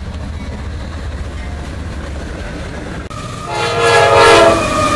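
CSX diesel freight locomotives running with a steady low engine rumble. About three and a half seconds in, a locomotive's air horn sounds loudly for about a second as a chord of several tones, then trails off fainter with its pitch falling slightly as it passes.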